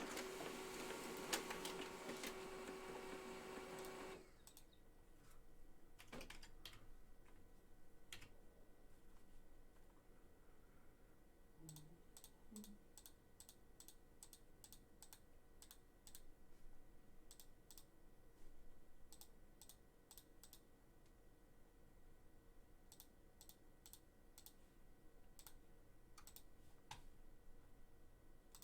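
Faint, irregular clicking of a computer keyboard being typed on, over quiet room tone. A steady low hum in the background cuts off about four seconds in.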